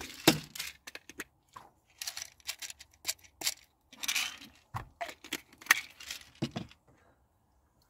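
Small plastic supplement tubs and tablets being handled: a run of irregular clicks, taps and short rattles as containers are picked up, opened and put down, stopping about seven seconds in.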